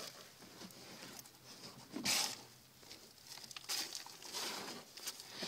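Faint, irregular rustling and scuffing from someone moving about with the camera in a dirt tunnel, with one louder scuff about two seconds in.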